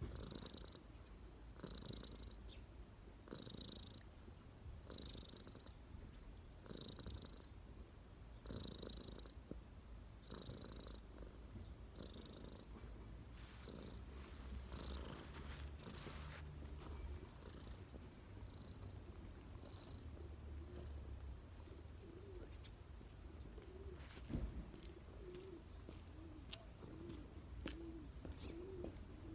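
A domestic cat purring close to the microphone, pulsing in a slow rhythm of about one breath a second. In the last several seconds a pigeon coos.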